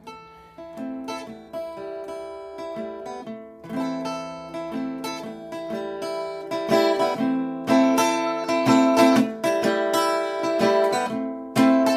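Solo acoustic guitar playing an instrumental passage of plucked and strummed chords, soft at first and growing louder a few seconds in.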